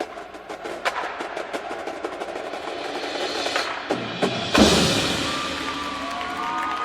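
Indoor percussion ensemble playing: fast, dense stick strokes on drums and wood block build up to one loud full-ensemble hit about four and a half seconds in, which rings out while a few gliding tones sound near the end.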